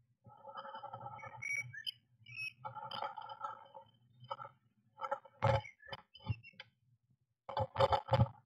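A blue tit moving inside a wooden nest box: rustling and scraping in the moss-and-wool nest for the first few seconds, then sharp clicks and scratches of its claws on the wooden wall, with a quick run of them near the end.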